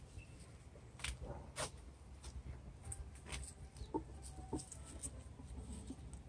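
Faint rustling and light clicks of rose petals being pulled off by hand and dropped into a glass jar, with two short, low-pitched blips about four seconds in.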